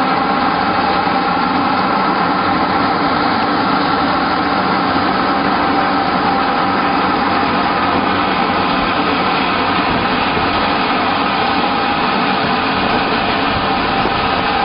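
HKJ350 pellet press production line running under load: its electric motors, fans and pellet press together make a loud, steady mechanical din with several constant tones.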